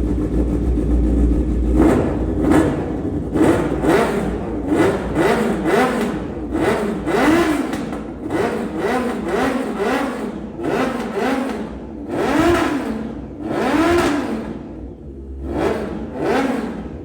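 800cc four-cylinder sport motorcycle engine idling, then revved in a long series of quick throttle blips, each rising and falling in pitch, starting about two seconds in and continuing to the end.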